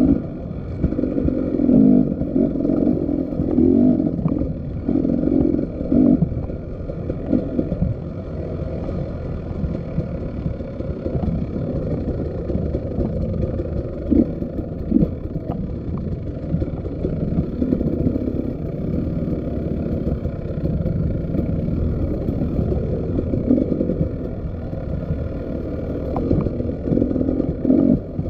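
Motorcycle engine running while the bike is ridden, its note rising and falling every second or two, with a few sharp knocks and rattles.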